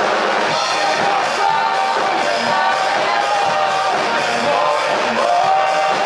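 Rock band playing live, with drums, electric guitar and bass guitar: held melodic notes over a steady beat with regular cymbal hits.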